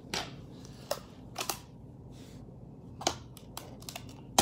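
A plastic food tub being handled and knocked to free a frozen block inside it: a string of short, irregularly spaced clicks and knocks, the sharpest at the end.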